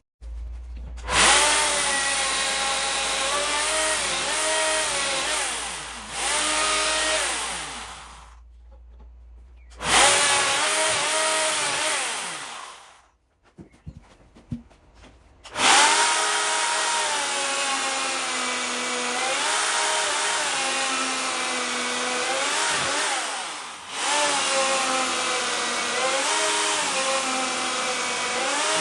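Electric woodworking power tool cutting into a green oak beam in three long runs, its motor whine dropping in pitch under load and recovering.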